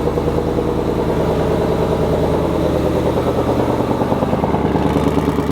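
Twin-turbo Shelby GT500 V8 idling steadily through its stock active exhaust, set to track mode with the valves open.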